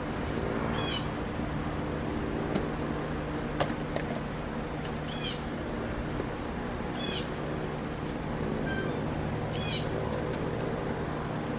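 Short high-pitched animal calls, about six of them, a couple of seconds apart, over a steady low hum, with a few light clicks.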